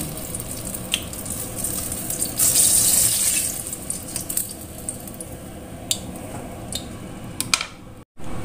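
Eggplant pieces sizzling in hot oil in a stainless steel wok: a steady hiss that swells for about a second near the middle, with a few clicks of a metal spider strainer against the wok as the pieces are lifted out.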